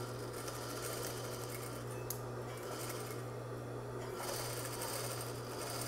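Sewing machine stitching through layers of fabric in two runs: one during the first two seconds, then again from about four seconds in, with a single click between them. The stitching is a holding seam across the bag's flap and strap.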